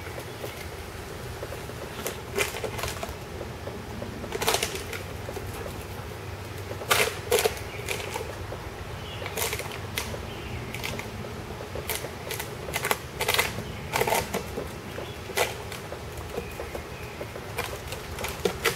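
Plastic bottle crackling and crinkling as a German shepherd puppy bites and chews it, in short irregular bursts of crunching.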